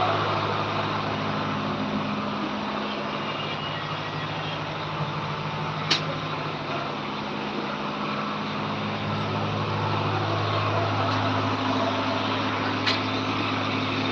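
A vehicle engine running steadily with a low hum, its pitch shifting slightly now and then, with two sharp clicks, one about six seconds in and one near the end.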